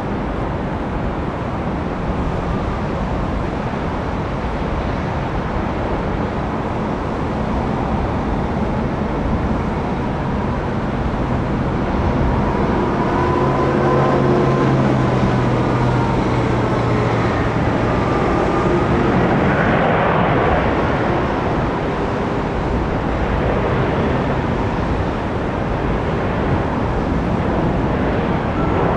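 Eurowings Airbus A320 landing: a steady jet engine rumble as it touches down and rolls out on the runway. The engine hum and whine swell for several seconds about halfway through as the airliner slows.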